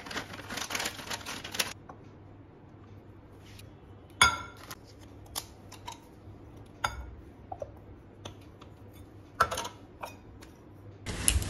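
Cardamom pods poured from a plastic packet, rattling into a small spice canister for a second or two, then several separate clicks and knocks as canisters and a lid are handled and set down on a granite countertop.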